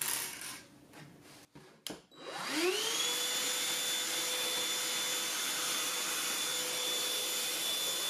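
Black+Decker 20-volt MAX Lithium Pivot cordless handheld vacuum switched on about two seconds in. Its motor spins up with a rising whine, then runs at a steady high whine with a rush of air.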